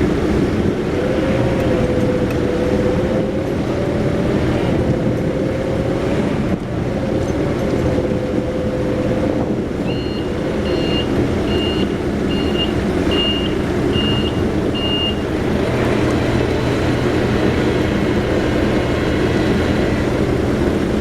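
Heavy machinery engine running steadily, with a wavering whine for the first half, then about seven evenly spaced warning beeps from a reversing or working-machine alarm near the middle.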